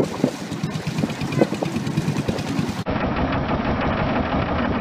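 Open-air wind and water noise with a few short sounds, then, from about three seconds in, the steady rapid putter of a wooden long-tail boat's engine, heard from on board as the boat cruises.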